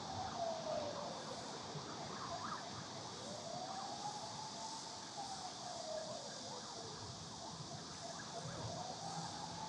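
A siren wailing slowly up and down, one long rise and fall about every five seconds, over a steady high hiss and a low background rumble.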